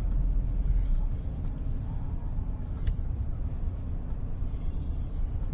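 Steady low rumble of a car's road and engine noise heard from inside the cabin, with a single sharp click about three seconds in.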